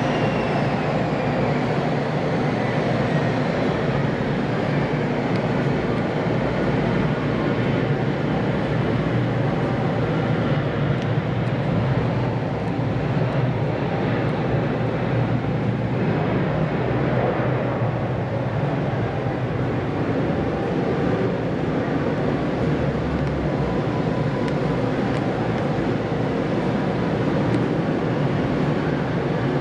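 Airbus A321 jet engines at takeoff thrust during the takeoff roll, liftoff and climb-out: a loud, steady jet noise, with a high whine falling in pitch over the first few seconds.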